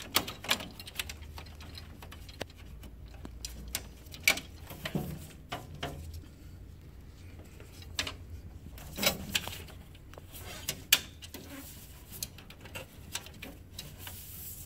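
Irregular plastic clicks and knocks of hands working the feed rollers and their latches loose inside an HP LaserJet M712 laser printer's lower paper-tray cavity.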